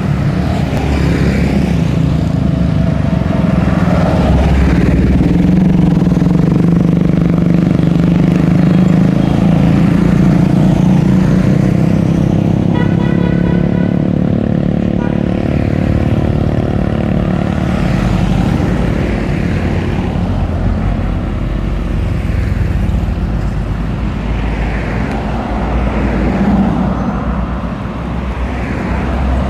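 Road traffic passing close by: motorbikes and cars driving past one after another, their engines making a steady low hum.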